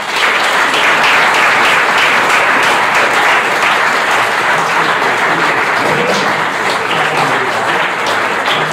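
Audience applause: many people clapping steadily, starting suddenly and easing slightly near the end, with a few voices underneath.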